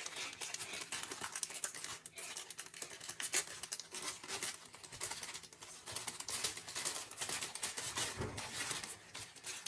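Handling noises: a dense run of small clicks, scrapes and rustles as parts are worked on by hand, with no single loud event.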